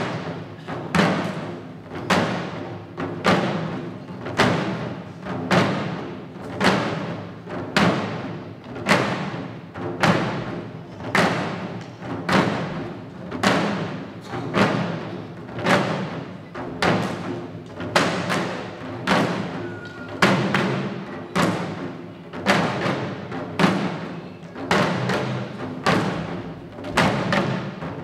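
Shishi-odori deer-dance drums worn by the dancers, struck in a slow, even beat of about three strokes every two seconds, each stroke ringing briefly.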